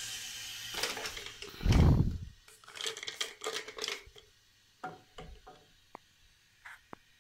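Handling noises around a plastic toilet cistern: a faint water hiss tapering off at the start, a heavy thump about two seconds in, then a quick run of sharp plastic clicks and knocks and a few scattered single clicks.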